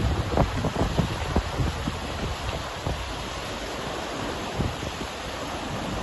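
Wind buffeting the microphone in irregular gusts, heaviest in the first second and a half, over the steady rush of a fast, shallow river.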